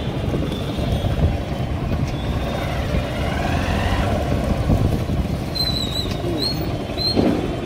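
Motorcycle running as it is ridden along a street: a steady low rumble, with a few short high squeaks near the end.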